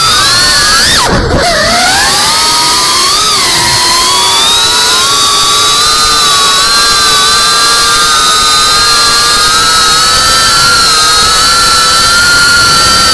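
Onboard sound of a GEPRC Cinelog35 FPV cinewhoop's brushless motors and ducted propellers whining. The pitch dips sharply and swoops back about a second in, then climbs a little and settles into a steady high whine.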